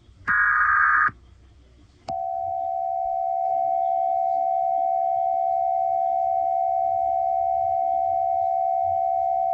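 Emergency Alert System signalling: a one-second burst of screeching header data, then, about two seconds in, a long steady single-pitched attention tone.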